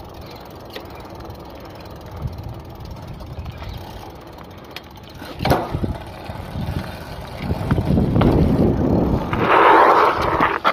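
Wind on the microphone and tyre noise from a fat bike ridden on asphalt, with one sharp knock about halfway through; the rushing noise swells over the last few seconds and is loudest near the end.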